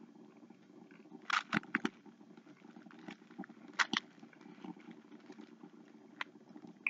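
Chewing a bite of cold Pop-Tart: a few short, crunchy mouth clicks and smacks, clustered about a second in, again near four seconds and once near the end, over a faint steady low hum.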